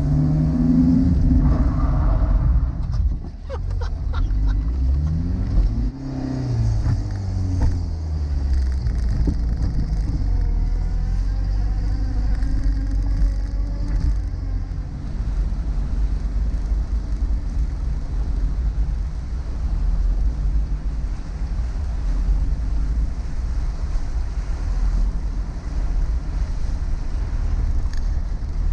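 Peugeot 106 engine and tyres on a wet road, heard from inside the cabin. The engine's pitch rises and falls through gear changes over the first several seconds, then it runs steadily at cruising speed.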